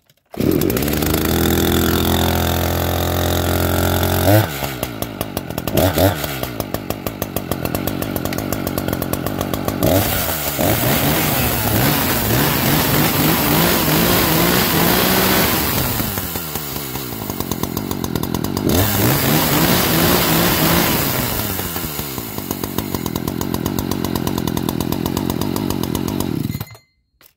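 Echo CS-590 Timberwolf two-stroke chainsaw catching and running at a steady fast idle for a few seconds, then dropping to a slower idle and being revved up and down several times before it is shut off near the end. This is a first test run to see that the newly fitted bar and chain stay on.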